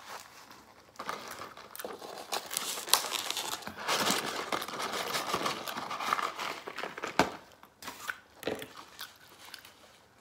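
Paper and cardboard packaging crinkling and rustling as crinkle-cut fries are tipped out of a cardboard fry carton onto the table, with a few sharp taps among the crackling, dying down near the end.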